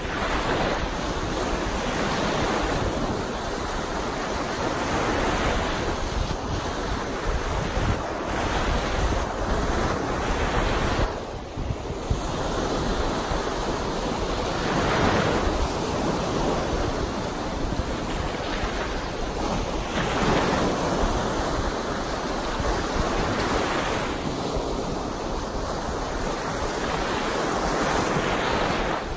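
Small wind-driven lake waves breaking one after another on a sandy shore, the wash swelling and easing every few seconds, with wind buffeting the microphone.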